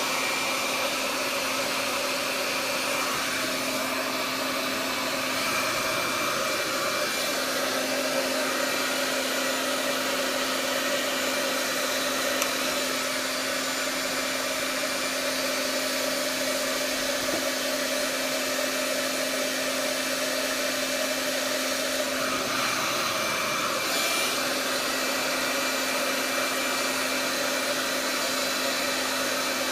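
Hand-held hair dryer with a diffuser attachment running steadily, an even blowing whir with a constant hum, its tone shifting briefly twice.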